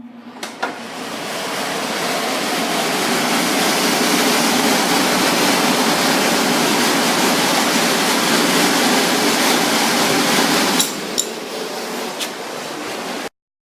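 A power tool running with a steady rushing noise, building up over the first two seconds. About eleven seconds in it drops quieter, with a few sharp clicks, and it cuts off abruptly near the end.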